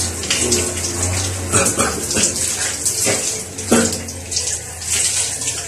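Water spraying from a handheld shower head and splashing over a person and the tiles, a steady hiss with uneven splashes.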